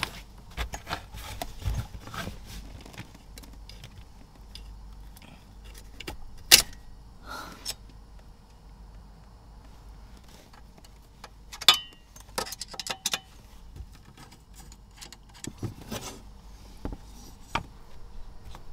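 Handling noises of a thin reversing-camera cable being fed and pulled through plastic trim under a van seat bench: scattered clicks, rustles and light knocks, with two louder sharp clicks, one about a third of the way in and one a little past halfway.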